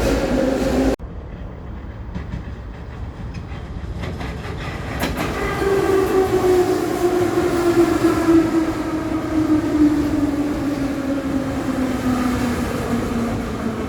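New York City subway train running, with a steady rumble that cuts off abruptly about a second in. After that, from about five seconds in, a train's electric whine slowly falls in pitch.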